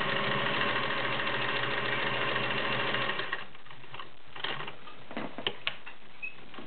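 Singer 403A gear-driven all-metal sewing machine running steadily while stitching a zigzag seam, a test of the freshly tightened bobbin case tension; it stops about halfway through, followed by a few light clicks.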